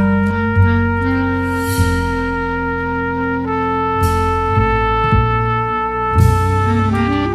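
Background music: a slow melody of long held notes with a trumpet-like tone over a changing bass line, with a few short hits. Near the end the lead note slides down and back up into a new note.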